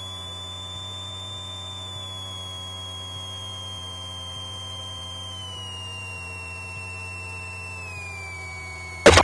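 Steady electrical hum with a thin high whine that slowly falls in pitch, from the Cessna's intercom audio feed rather than the open engine sound. A louder burst cuts in abruptly near the end.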